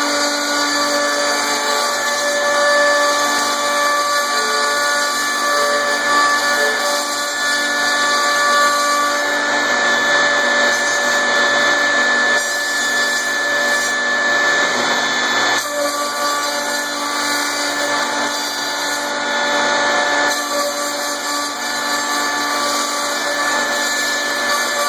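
Precix Industrial 11000 CNC router running steadily as its spindle cuts lettering into a sheet: a continuous high whine over a cutting hiss.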